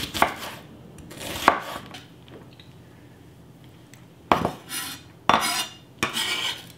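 Chef's knife on a bamboo cutting board while dicing an onion: two sharp knocks of the blade on the board, then, from about four seconds in, three longer scrapes as the blade is dragged across the board to gather the diced onion.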